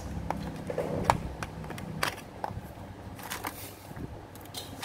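Scattered light clicks and knocks of hand tools being handled as a steel tape measure is pulled out and laid against a pair of end-cutting pliers, over a low steady hum.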